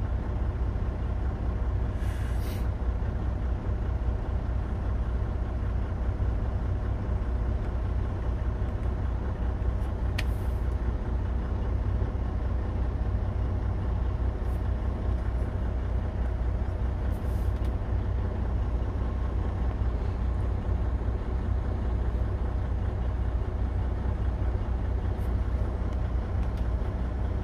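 Detroit heavy-duty diesel engine of a 2019 Freightliner Cascadia idling steadily, running for a parked aftertreatment regeneration.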